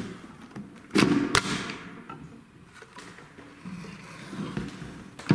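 Two sharp knocks about a second in, under half a second apart, as the G11 rifle's polymer housing and assemblies are fitted back together on a tabletop. Faint handling and scraping follows, with another knock at the very end.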